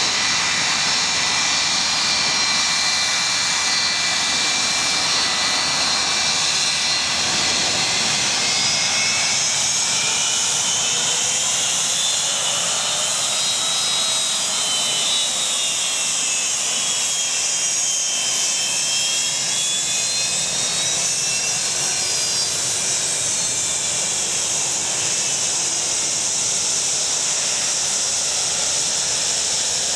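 Boeing 757's Rolls-Royce RB211 turbofan engines running at low power, a steady jet whine with a hiss over it. In the middle, the whine's pitch sinks and then rises again.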